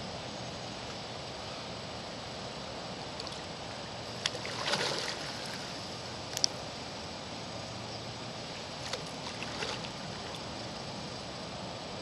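Steady background hiss over rippling water, broken by a few short splashes and sharp clicks about four to five seconds in, once more at six and a half seconds, and again near the ten-second mark: a hooked carp swirling at the surface.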